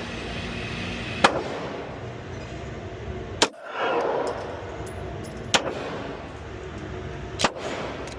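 Four single pistol shots from a Glock 19 9 mm handgun, fired at a slow, even pace about two seconds apart; each sharp crack is followed by a short echo.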